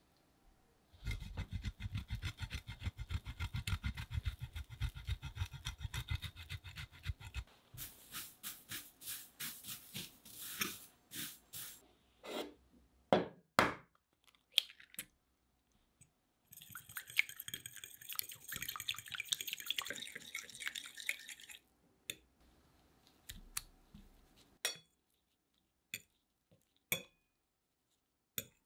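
Breadcrumbs being stirred on a plate for about six seconds, then scattered taps and knocks, then about five seconds of an egg being beaten with a fork, the fork clinking quickly against a ceramic plate. A few soft taps follow near the end as a potato piece is dipped in the beaten egg.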